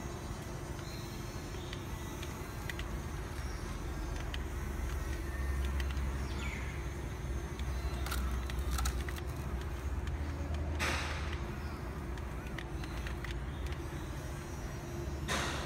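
Radio-controlled model excavator working in sand: its small electric motors and gears run as the boom and bucket dig and swing, over a steady low rumble. There are a few light clicks about halfway through, and two short hissing bursts, one just after the middle and one near the end.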